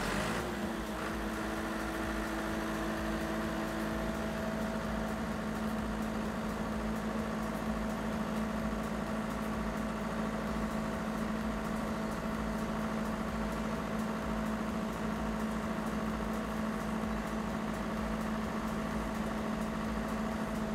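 Diesel generator set running steadily at no load just after starting, settling at speed in its first seconds with an even engine hum.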